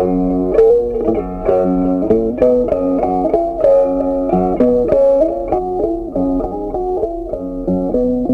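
Background music: a plucked guitar playing a quick melody of short picked notes.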